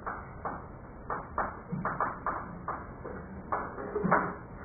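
Chalk writing on a blackboard: about a dozen short, irregular taps and scrapes as the chalk strikes and drags across the board.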